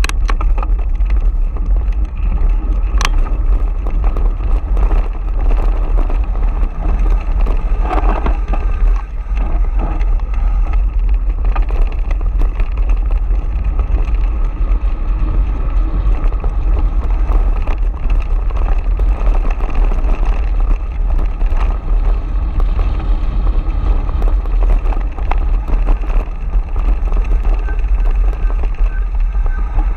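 Wind rushing over the bike-mounted camera's microphone as a mountain bike rolls fast over loose gravel, with tyres crunching on stones and scattered clicks and rattles from the bike.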